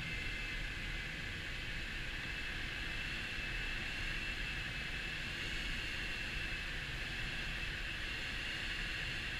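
Steady rush of airflow over a glider's canopy in gliding flight, with a deep rumble and a thin, steady high whistle over it.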